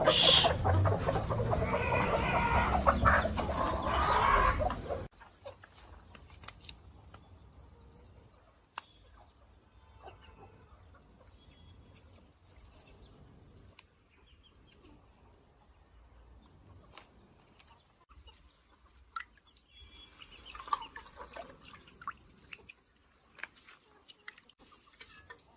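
Chickens clucking loudly for about five seconds, then an abrupt cut to a quiet stretch with scattered faint clicks and occasional faint clucks.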